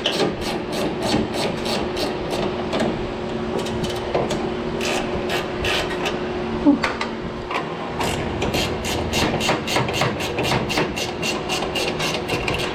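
Hand ratchet wrench clicking in quick, even strokes as bolts are worked on, about three to four clicks a second, with a brief pause near the middle, over a steady low hum.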